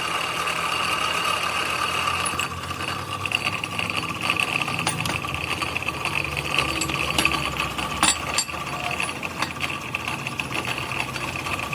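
Metal lathe running, with a steady high whine and a low hum, and scattered sharp ticks.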